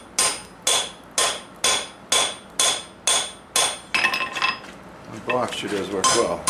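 Blacksmith's hand hammer striking red-hot steel on an anvil, each blow ringing. Steady heavy blows come about two a second for nearly four seconds, then lighter, irregular taps, then heavy blows again near the end.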